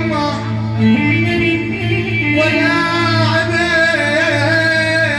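A man singing into a microphone in Arabic folk style, with long held notes that waver and bend, over a steady low drone.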